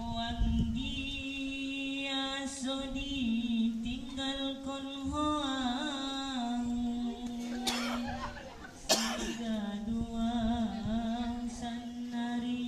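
A single voice singing long, held, wavering notes with no instruments. Two short sharp noises come near the middle, about a second apart.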